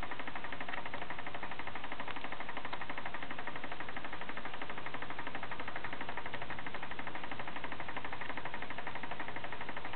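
Stainless steel ball rolling around the hub of a disc spinning on a free axle, giving a steady, fast rattling whir with rapid, even ticks.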